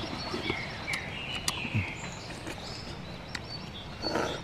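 Birds chirping in short gliding calls over a steady outdoor background, with scattered sharp clicks. Near the end comes a brief slurp as a grilled mussel is sucked from its shell.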